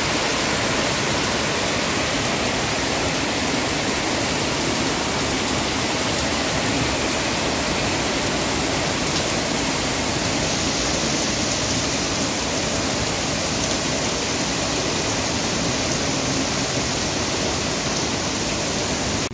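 Heavy rain falling steadily on leafy trees: a loud, dense, even hiss.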